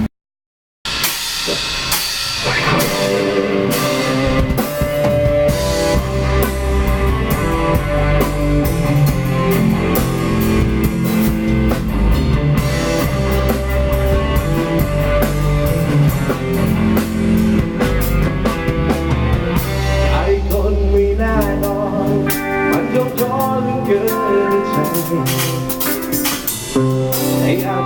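Instrumental band music with drum kit and guitar, starting after a moment of silence at the very start. The deep bass drops away about three quarters of the way through, leaving lighter, higher instruments.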